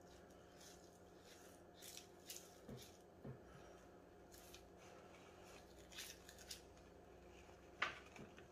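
Faint knife slicing and scraping as silver skin and hard fat are cut from a rack of raw beef short ribs, heard as scattered soft clicks and scrapes. One sharper, louder sound near the end.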